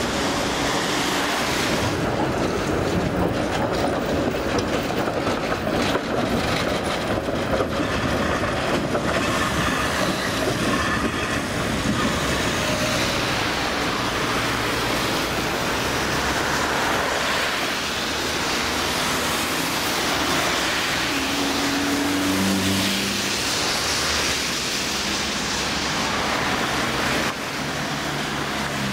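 Street trams and road traffic: an articulated V3A tram rolls along the rails with wheels clattering over track joints, while cars pass on the wet road.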